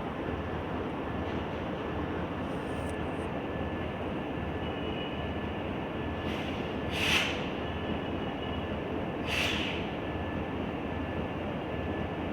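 Train hauled by a Wabtec diesel locomotive running steadily with a dense rumble. Two short hisses come about seven and nine and a half seconds in.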